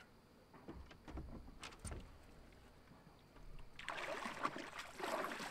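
A hooked channel catfish being fought from a boat: a few low thumps and knocks of rod handling in the first two seconds, then from about four seconds in a louder, irregular splashing and sloshing of water.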